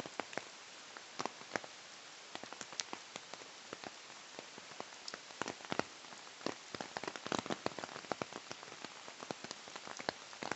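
Steady rushing hiss of a flooded river, with many irregular sharp ticks and pops scattered through it.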